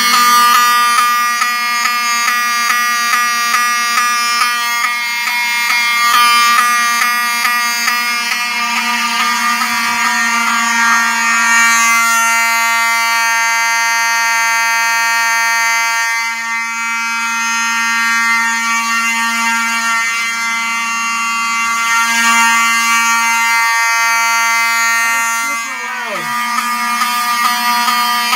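Wheelock 7002T-24 horn strobes and a Wheelock 34T-24 horn sounding together in alarm, a loud, harsh, steady buzzing horn tone. The horns run on filtered 24 V DC from a booster panel.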